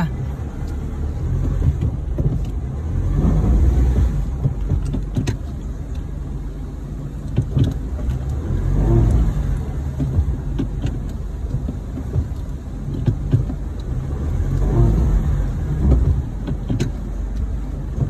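Four-wheel-drive vehicle's engine heard from inside the cab as it manoeuvres slowly, the revs rising and falling about three times over a steady low rumble, with scattered small knocks and rattles.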